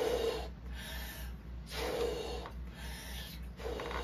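A large latex balloon being blown up by mouth, three long breaths pushed into it about two seconds apart with quick inhalations between. The balloon is nearly full and close to bursting.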